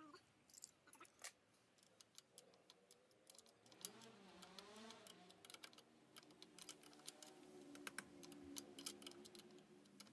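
Faint, light metallic clicks and ticks of an open-end wrench being fitted and turned on the muffler mounting bolt of a Yamaha XMAX 250 scooter as it is tightened.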